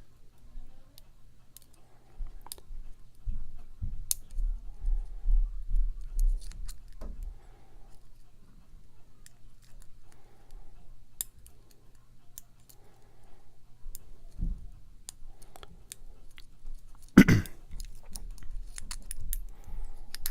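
Lock picking: a hook pick and top-of-keyway tension wrench working the pins of a challenge lock, giving scattered small metallic clicks and scrapes with low handling knocks. One louder knock comes about 17 seconds in, over a faint steady hum.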